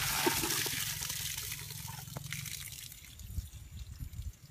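Water splashing, starting suddenly, loudest in the first second and dying away over about three seconds.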